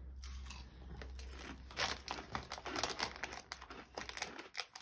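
Plastic crisp packet crinkling and rustling in irregular bursts as it is handled and a grey squirrel pokes its head into it.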